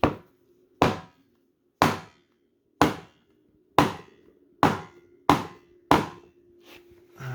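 Wooden mallet striking the input shaft assembly of a 1960 Ford three-speed transmission, about eight sharp blows roughly a second apart and coming a little faster toward the end, to drive the input shaft bearing.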